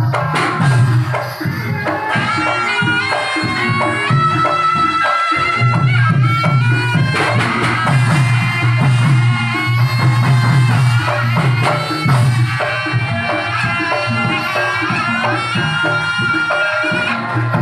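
Live East Javanese jaranan accompaniment: dense drum and percussion rhythm under a wandering high melody line.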